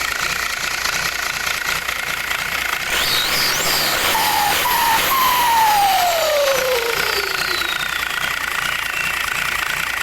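Turbocharged engine running with a steady whine. It is revved in a few short blips partway through, then the turbo's whistle falls slowly in pitch over several seconds as it spins down. The turbo has a newly fitted racing compressor housing.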